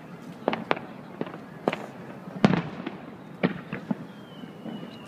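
Aerial fireworks shells bursting one after another in a display: about eight sharp bangs in five seconds, irregularly spaced, the loudest about two and a half seconds in.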